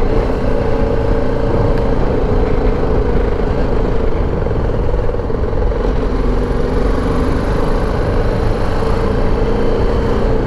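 BMW G310 GS motorcycle's single-cylinder engine running steadily while riding at town speed, with a dense low rumble underneath.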